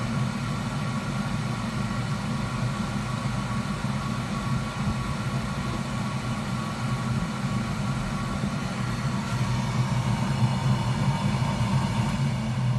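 Steady whir of a hot-air rework station's blower, with a faint steady whine over a low hum. It grows louder and more rushing near the end.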